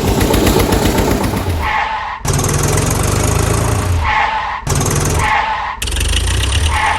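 Dubbed-in vehicle engine sound effects for toy tractors and trucks: a rapid low chugging engine sound, spliced in short clips that cut in and out abruptly every second or two.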